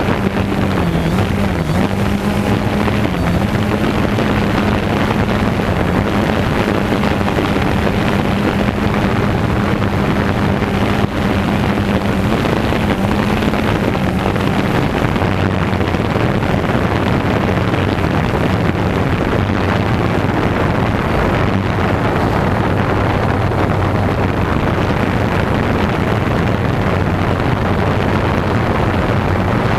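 DJI Phantom quadcopter's motors and propellers buzzing steadily, heard from the GoPro mounted on it. The pitch dips briefly a few times, and about halfway through the main tone drops lower.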